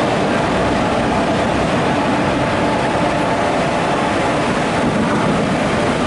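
Train noise: a steady, loud rumble.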